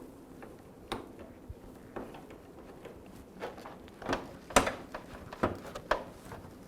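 Scattered light clicks and knocks of a screwdriver and screws being worked on a dishwasher door's inner panel, a few seconds apart at first, then closer and louder in the second half.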